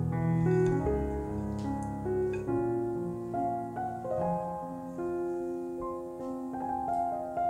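Background piano music: a melody of single held notes over lower notes.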